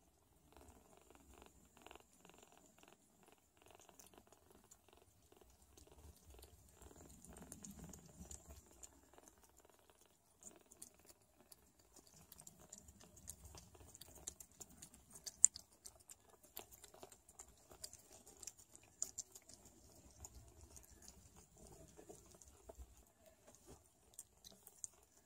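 Sphynx cat purring faintly in stretches while nursing her kittens, with soft clicks and scratching from the kittens' paws on a fleece blanket. One sharper click comes about fifteen seconds in.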